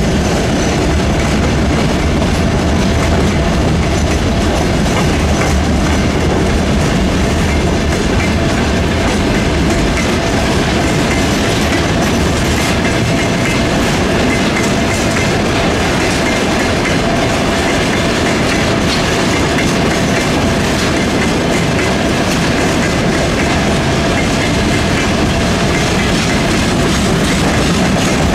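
Freight train wagons rolling past: gondola wagons, then tank wagons, with a loud, steady noise of steel wheels on the rails that runs on without a break.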